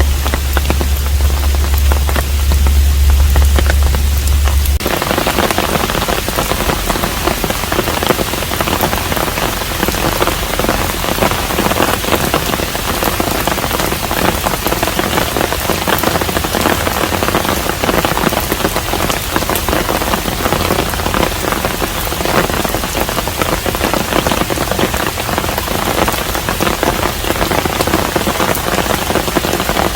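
Steady rain falling on a hanok, a dense even patter. For the first five seconds or so a deep low hum sits under it, and it cuts off suddenly; after that the rain sounds brighter.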